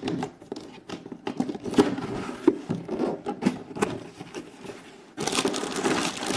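A cardboard toy box being opened by hand: scattered scrapes, taps and rustles. About five seconds in, a sudden continuous crinkling of a plastic bag starts.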